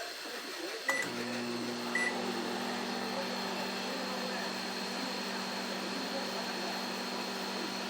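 Microwave oven being started: a click and a short keypad beep about a second in, a second beep a second later, then the oven runs with a steady low hum.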